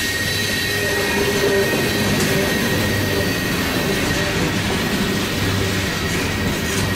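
Open-top hopper cars of a freight train rolling past on the rails: a steady rumble of wheels and rail joints, with a thin high wheel squeal ringing over it.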